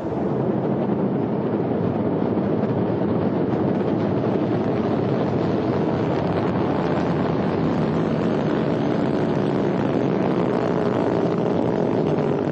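Ariane 5 rocket lifting off: a loud, steady roar from its engines and solid boosters.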